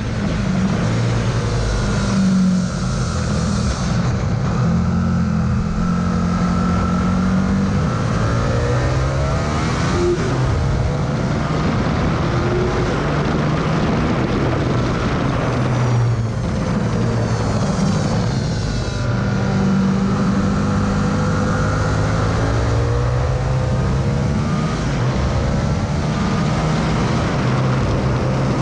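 Onboard sound of an Aprilia RSV R's V-twin engine under hard acceleration, revs climbing and then dropping sharply with gear changes a few times, under heavy wind rush on the side-mounted camera.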